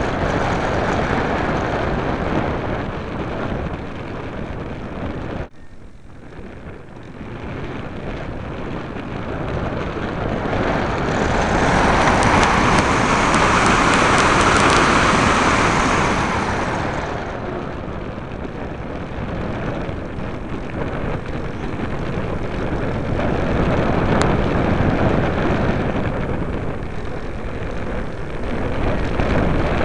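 Rushing wind and motor noise of a radio-controlled model airplane in flight, picked up by a keyring camera on the wing. The noise drops suddenly about five seconds in, then swells to its loudest in the middle before easing back.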